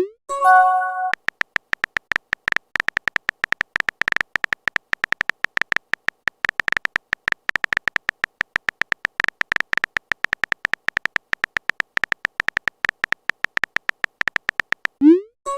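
Phone texting sound effects: a fast, continuous stream of keyboard tap clicks, with a short rising swoop and chime right at the start and again near the end, like a message being sent.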